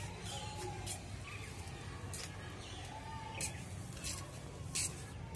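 Outdoor background on an open terrace: a steady low hum, with short high chirps of small birds scattered through it and a few faint distant voices.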